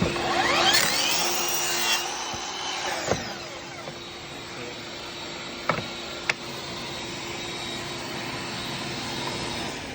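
Cordless chop saw's motor spinning up with a rising whine, then winding down about two seconds in, followed by a few sharp clicks.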